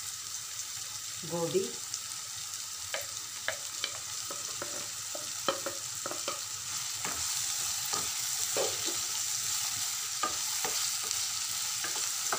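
Chopped vegetables sizzling in oil in a non-stick frying pan, with a spatula scraping and clicking against the pan as they are stirred. The sizzle grows a little louder about halfway through.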